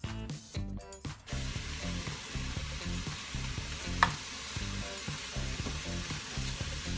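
Food sizzling steadily in frying pans on a gas stove. The sizzle comes in about a second in, and there is one sharp clink about four seconds in. Background music plays underneath.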